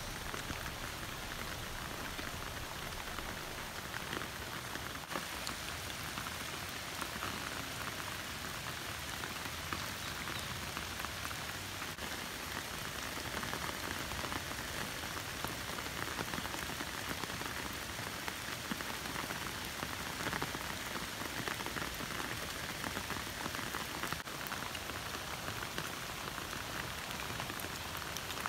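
Steady monsoon rain falling on a puddle of standing water and on wet grass, a dense, even patter of drops.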